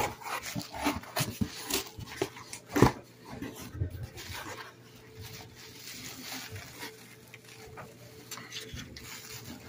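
Handling of a meal-kit box's cardboard and packaging: rustling, scraping and scattered light knocks as the insulated liner is moved and the recipe cards are pulled out, with one sharper knock about three seconds in.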